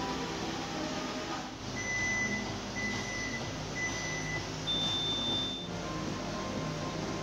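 Electronic timer beeps: three short, steady beeps about a second apart, then one longer, higher beep, the countdown pattern of a workout interval timer signalling the start, over background music.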